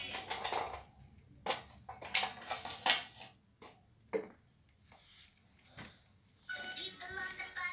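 Scattered soft taps, clicks and rustles of hands handling food while wrapping a fresh rice-paper roll on a tabletop. A children's song begins playing in the background near the end.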